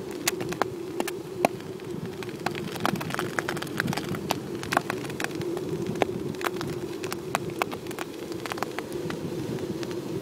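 Kite buggy rolling fast over a shell-strewn sand beach: shells crunching under the wheels in quick, irregular sharp snaps over a steady drone.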